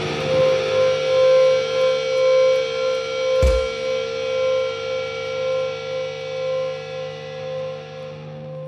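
Distorted electric guitar feedback ringing out as a steady held drone at the end of the song, slowly fading. A single low thump comes about three and a half seconds in.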